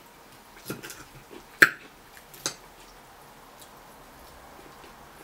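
A fork clinking against a glass plate four times in the first two and a half seconds. The loudest strike, about a second and a half in, rings briefly.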